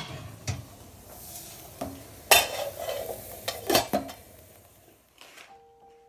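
A metal utensil stirring and clinking against a pot of boiling fabric coffee filters on the stove, with a few sharp clanks over a faint simmering hiss. Soft music tones start near the end.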